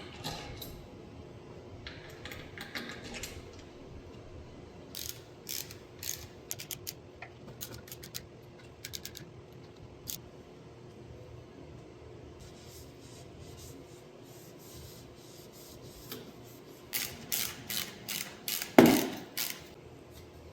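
Hand tools clicking and clanking in short runs of quick clicks, with one louder knock near the end.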